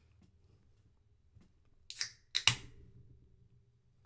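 Pull tab of an aluminium drink can of carbonated punch-and-vodka cracked open about two seconds in: a short hiss of escaping carbonation, then two sharp clicks close together.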